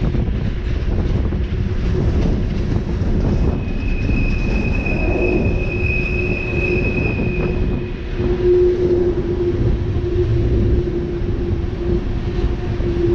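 Freight train of empty open-top coal cars rolling past with a steady rumble of wheels on rail. A high wheel squeal sounds from about four seconds in until past the middle, and a lower steady squealing tone grows stronger near the end.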